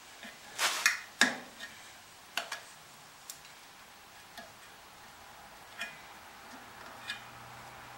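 Irregular clicks and light knocks as a hand presses on and turns a bandsaw wheel, seating a newly fitted polymer tire. The two loudest come about a second in, with fainter single clicks scattered after.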